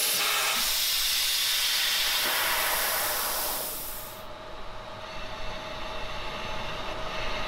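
Magnum CUT-120 plasma cutter's machine torch cutting steel plate with a loud, steady hiss of the arc. About four seconds in the arc stops and a quieter, duller rush of air through the torch carries on with a faint steady tone.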